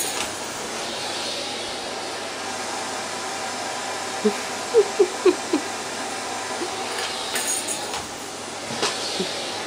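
Vacuum cleaner running steadily, with a quick run of four or five short squeaks about four to five seconds in.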